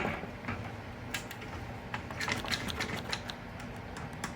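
Irregular light clicks and taps of a clamp and the fiberglass fairing being handled and clamped in place, with a louder knock at the start and a quick run of clicks near the middle.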